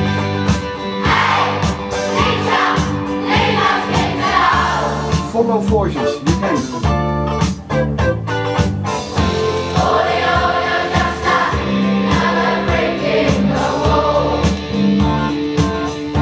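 Recorded music played through Scansonic MB1 stand-mounted loudspeakers: several voices singing together over plucked guitar and a steady bass line. The singing comes in two phrases, one early and one in the second half.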